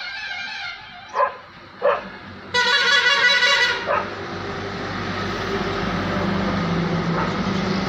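A dog barks twice, then a loud horn blast lasts just over a second. After that a diesel tipper truck's engine rumbles steadily and grows louder as the truck approaches.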